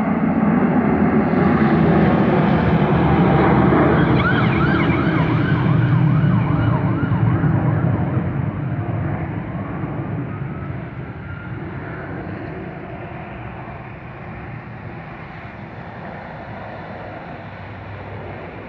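Aircraft engine noise from a plane passing the spotting position. It is loud for the first several seconds, with a wavering whine partway through, then fades steadily as the plane moves away.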